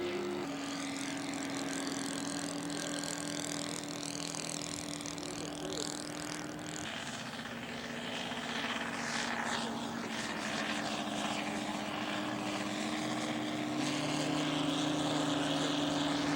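Propeller engines of radio-controlled scale model airplanes running steadily in flight. Their pitch shifts in steps a few times as the throttle changes or the planes pass.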